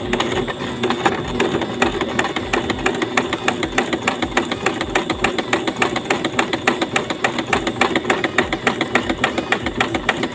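Portable Janome electric sewing machine running steadily, the needle stitching in a fast, even rhythm while sewing one side of a buttonhole. It starts up at the very beginning.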